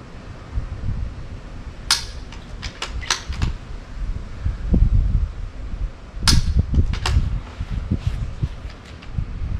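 .22 rimfire rifle firing during a timed NRL22 stage: two sharp cracks about four seconds apart, each followed by a few lighter clicks and knocks. Wind rumbles on the microphone throughout.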